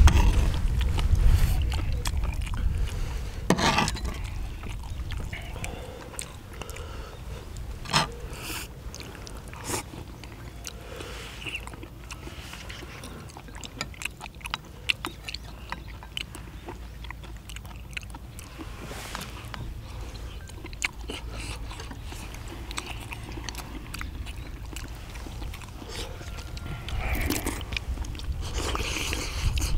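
People chewing and biting into spicy braised chicken and chewy beef intestines, with scattered sharp clicks and scrapes of a metal ladle and chopsticks against the cast-iron cauldron-lid pan, over a low steady rumble.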